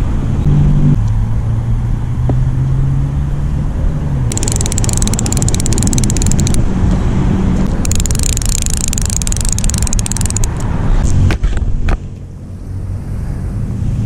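A click-and-pawl fly reel ratcheting as a hooked grass carp runs and strips line, in two rapid bursts of about two seconds each, starting about four and eight seconds in. Steady wind rumble on the microphone underneath.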